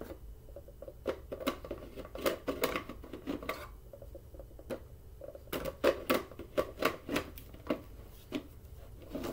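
Hard plastic parts of a Bissell PowerForce Bagless vacuum clattering and knocking as its clear dirt cup is handled and fitted onto the vacuum body: a quick run of clicks and knocks in two bursts, the second loudest, with a few more near the end.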